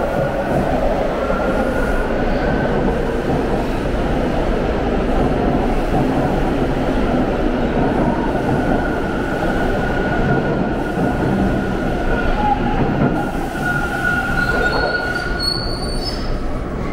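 TTC Line 2 T1 subway train pulling out of the station platform, its cars running past with a steady rumble and a thin wheel squeal. Higher squeal tones come in about three-quarters of the way through, and the sound eases a little near the end as the last cars clear.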